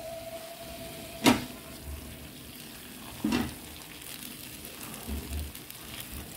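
Pot of unripe plantain porridge simmering with a steady sizzle while a wooden spoon stirs it. The spoon knocks sharply against the pot about a second in, again after three seconds, and more softly near five seconds.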